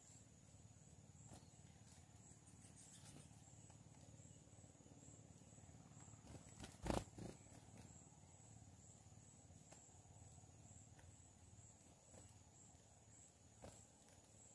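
Near silence with a faint, high, steady insect trill, likely a cricket or similar. A single short knock sounds about seven seconds in.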